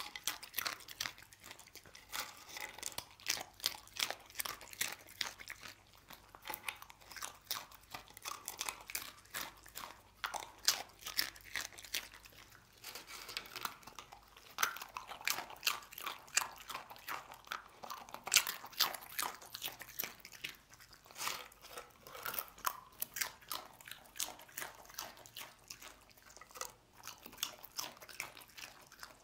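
A dog crunching and chewing nacho chips: a steady run of sharp, crisp crunches, several a second.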